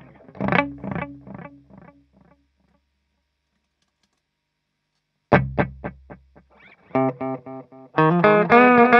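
Electric guitar (Gibson Les Paul Studio) through an Ibanez ES-2 Echo Shifter analog delay into a Marshall JTM45-clone valve amp. A note's quick, evenly spaced echo repeats, about five a second, die away, and the sound cuts out for about three seconds. A struck note then sets off another run of fast repeats, and full chords come in about a second before the end.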